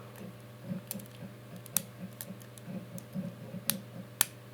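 Lock pick and tension wrench working the pins of a Master Lock 2250D brass five-pin padlock: faint scratchy ticking with a few sharp metallic clicks at irregular intervals as the hook lifts the pins one by one.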